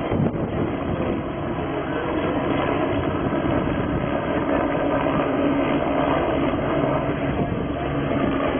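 Helicopter hovering overhead with a load slung on a long line, its rotor and engine running steadily and loud.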